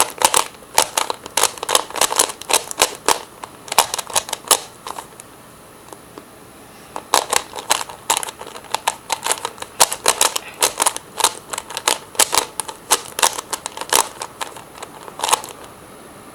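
Rubik's cube layers being twisted, quick runs of plastic clicks and clacks. The turning pauses for about two seconds a third of the way in and stops shortly before the end.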